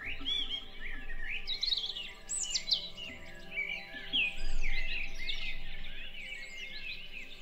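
Several woodland songbirds singing and calling at once, a dense run of overlapping chirps and quick rising and falling phrases, loudest a little past the middle.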